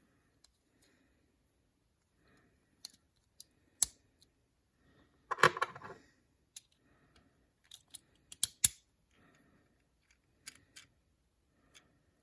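Handling of small plastic parts and packaging: scattered sharp clicks, with a short crinkle of plastic about halfway through.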